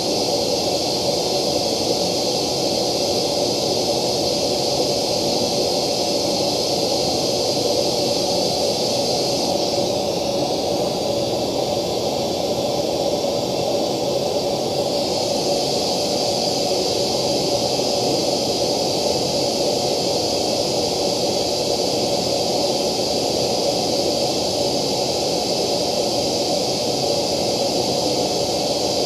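Steady test noise played through a loudspeaker with a JBL ring-radiator tweeter, an even hiss with a lower band beneath it and a gap in the middle. For a few seconds near the middle the top treble goes duller as a hand covers the tweeter while an acrylic slant-plate acoustic lens is fitted over it. It then returns to the same steady hiss.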